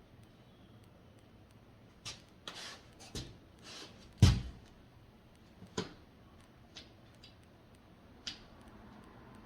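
Scattered knocks and clicks with a few short scraping sounds, and one loud, deep thump just after four seconds in.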